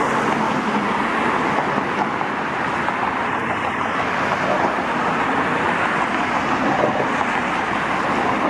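Steady rushing noise of road traffic.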